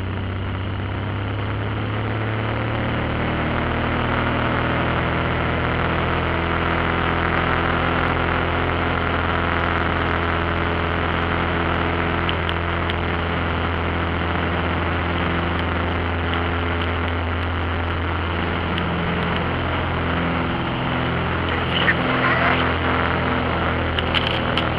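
Light aircraft's piston engine and propeller heard from inside the cabin, running steadily while the plane taxis, growing a little louder after the first few seconds. A few sharp clicks near the end.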